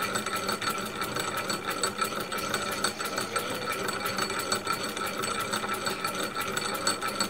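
Model double-acting oscillating engine, 15 mm bore and 50 mm stroke with a geared flywheel, running steadily with a rapid, even mechanical beat.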